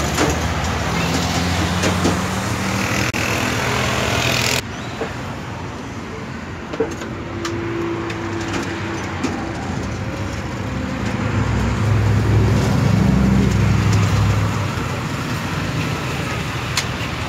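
Street traffic noise: vehicle engines and road noise run steadily, and a low engine rumble swells between about eleven and fifteen seconds in. The background changes abruptly about four and a half seconds in.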